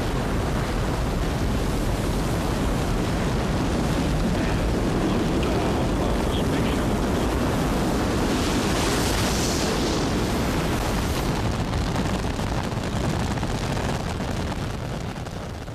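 Space Shuttle Columbia's rocket engines firing at ignition and liftoff: a dense, steady rocket rumble, heaviest in the low end, that fades near the end.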